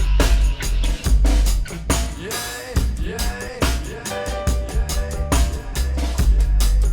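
Instrumental passage of a band's song: a drum kit beating hard over a very deep, double-tracked bass, with a melodic line of sliding notes above.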